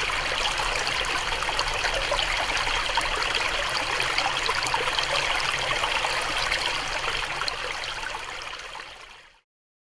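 Shallow mountain stream babbling and trickling over rocks, a steady rush of running water recorded through a homemade binaural microphone. It fades out over the last couple of seconds and stops just before the end.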